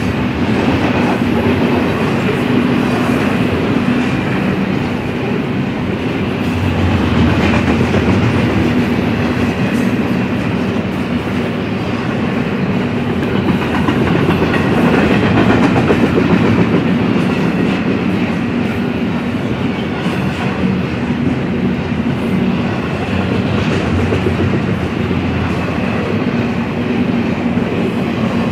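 Double-stack intermodal well cars of a freight train rolling past: a steady, loud rumble and clatter of steel wheels on the rails, with a clickety-clack over the rail joints.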